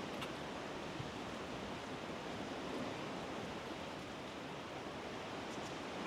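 Steady rushing ambient noise with no distinct events.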